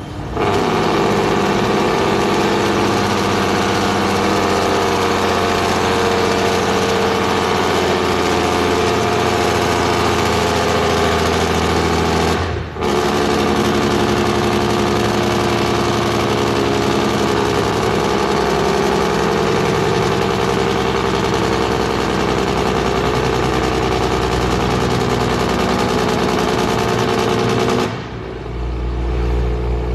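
Semi truck's diesel engine with the Jake brake (compression-release engine brake) on, a loud rapid rattling blat echoing through a road tunnel. It dips briefly about halfway through and fades out near the end.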